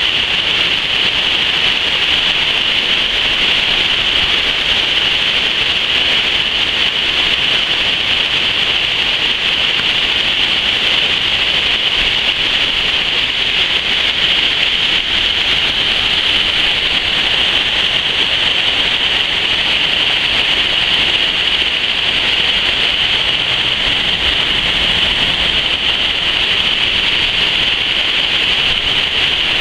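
Water pouring over a concrete weir and rushing through rocky rapids below: a loud, steady hissing rush.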